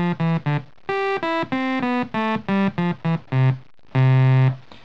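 LushOne single-board synthesizer playing a quick run of separate single notes on oscillator 1's raw sawtooth wave, with the filter fully open: a bright, very computery tone. It is monophonic, one note at a time, and the phrase ends on one longer, lower note.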